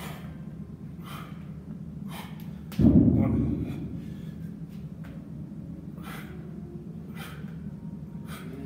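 A man's hard breathing, short sharp exhales every second or so, as he works through burpee-style exercises. A single loud thud comes about three seconds in.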